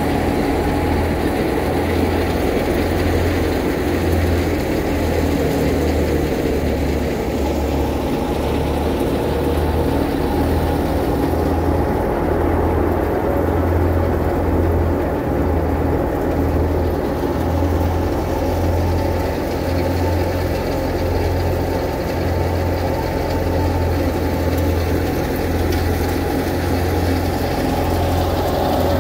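Belt-driven wheat thresher and its engine running steadily under load: a continuous low mechanical drone with a regular throb underneath.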